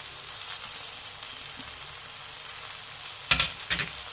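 Freshly washed drumstick leaves sizzling in hot oil with fried onions in a pan, a steady hiss. Two sharp knocks come about three seconds in.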